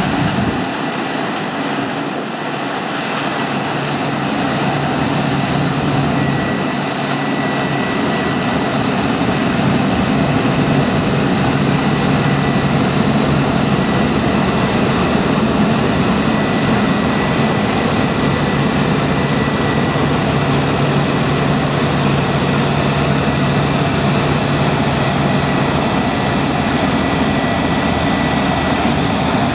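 Heavy diesel farm machinery running steadily at working load, with a thin, steady high whine. The deep low end fills in a few seconds in.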